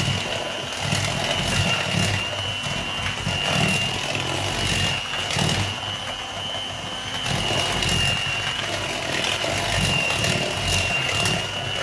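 Electric hand mixer running steadily, its beaters creaming margarine and brown sugar in a plastic bowl, with a steady high whine over the motor hum.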